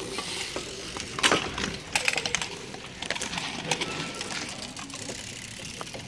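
Bike polo play: irregular sharp clacks and knocks of mallets hitting the ball and one another, with bicycles rattling over the court, loudest about a second and two seconds in.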